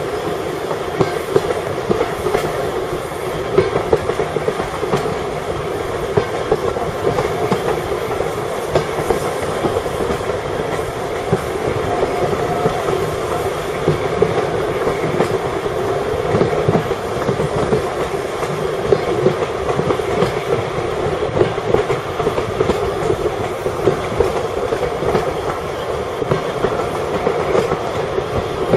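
Train running along the track: a steady rumble with continual small rattles and clicks from the wheels and carriages.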